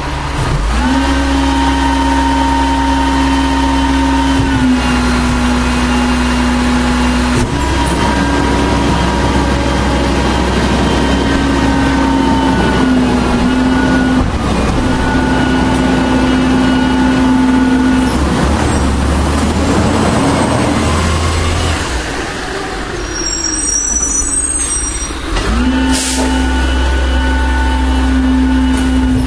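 1996 Volvo WX64 garbage truck's diesel engine running loud and steady at raised revs, its pitch shifting slightly up and down several times. The revs ease off about two-thirds of the way through, a short sharp air hiss follows, and then the engine climbs back up to speed.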